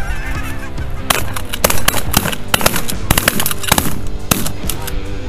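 A rapid volley of a dozen or more shotgun shots from several hunters firing on a flock of Canada geese over decoys, starting about a second in and lasting about three and a half seconds. Geese honk just before the shooting starts, and background music runs underneath.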